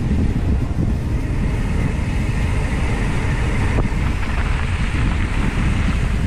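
Steady rush of wind buffeting a GoPro's microphone while a mountain bike rolls along a dirt track, with the low rumble of the tyres and frame on the rough surface. A single sharp tick a little before the middle.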